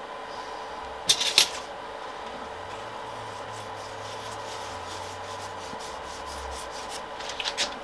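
A sheet of paper rustling and rubbing as it is slid between a 3D printer's nozzle and build plate to feel the gap during bed levelling, with two sharper rustles about a second in and more near the end. A steady machine hum runs underneath.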